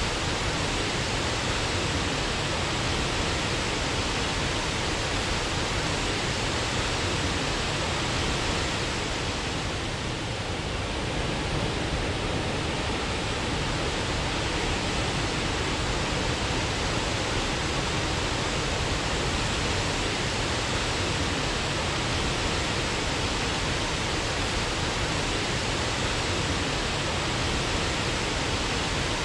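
Waterfall rushing steadily, a dense, even roar of falling water that dips slightly about ten seconds in.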